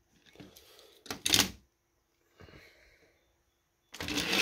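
Light plastic clicks and knocks as die-cast Hot Wheels cars are handled and set on an orange plastic track. Near the end a loud, steady rattling rumble starts suddenly: the cars rolling down the plastic track.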